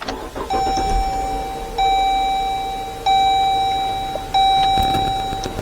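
Jeep Grand Cherokee dashboard warning chime sounding four times, about a second and a bit apart, each tone fading, over the low running of the engine as the car is switched on.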